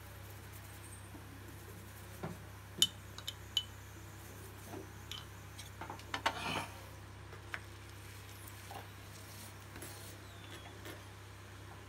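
Metal utensils clinking against a tawa (flat griddle) while a chapati cooks: a few sharp clinks about three seconds in, a quick cluster of knocks and scrapes around six seconds, and one more clink shortly after.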